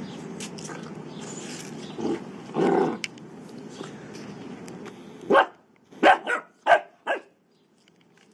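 Bernese mountain dog puppy barking: about five short, sharp barks in quick succession, starting a little past halfway.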